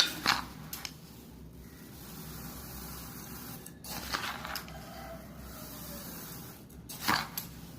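Crisp crunching of raw rice grains being bitten and chewed, in three short bouts: at the start, about four seconds in, and near the end.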